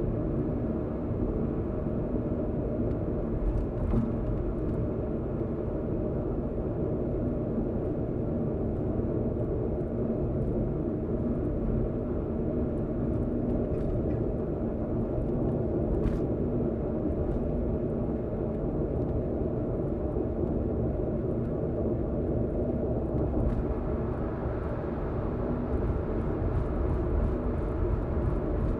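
Steady road and engine noise inside a car cruising on an expressway: an even low rumble with a faint steady hum.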